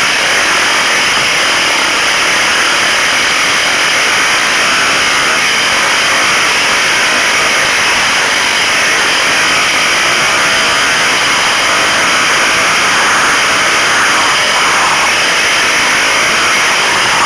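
Trail motorcycle engine running close by, a steady, loud, even noise that does not change.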